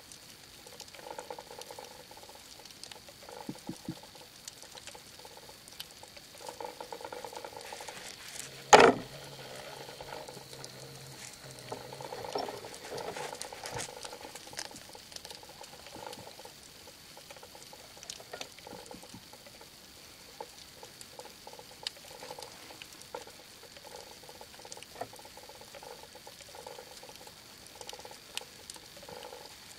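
Underwater ambience heard through a camera housing: a constant scatter of faint crackling clicks and soft water rushes. About nine seconds in there is a single loud, sharp knock.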